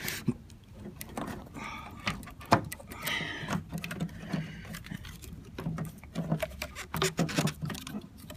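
Scattered sharp clicks and knocks of hands working the plastic rear cap of a car's headlight housing, at irregular intervals.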